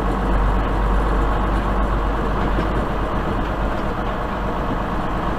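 Semi truck's diesel engine running at low speed as the rig creeps along, heard from inside the cab as a steady low rumble that eases a little about three seconds in.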